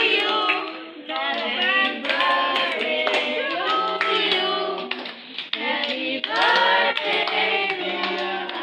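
A group of children and adults singing a birthday song together, with hands clapping along.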